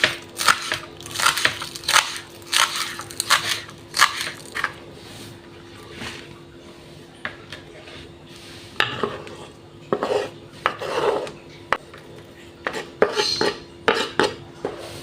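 Knife cutting onions on a cutting board: a quick run of sharp knocks for the first few seconds, a pause, then softer, more irregular cutting strokes later on.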